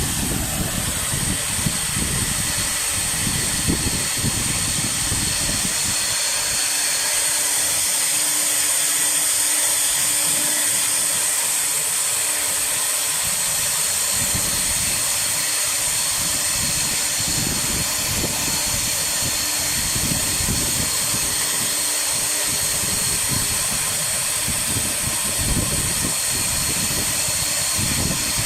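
Air-cooled CNC router spindle running at high speed with a steady high whine over a hiss from its cooling fan, while the bit carves MDF with an uneven low rumble that comes and goes.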